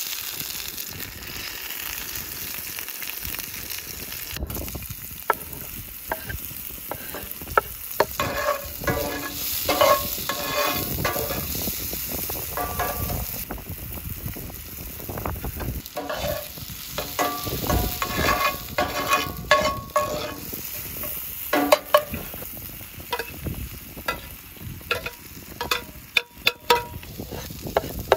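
Food sizzling in oil in a hot cast iron pan while it is stirred and scraped with a spoon and a wooden spatula, with frequent knocks and scrapes of the utensils against the pan.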